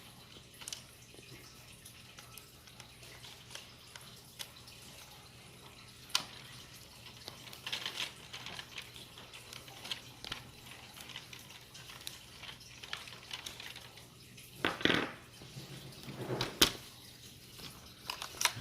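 Hard plastic parts of a vintage Kenner X-Wing toy being handled and screwed back together: scattered light clicks and short scrapes, with a louder scrape and a sharp click near the end.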